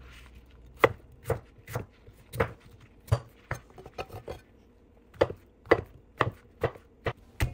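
Chef's knife slicing a large brown mushroom, each stroke knocking onto the cutting board: about a dozen sharp chops at roughly two a second, with a short pause in the middle.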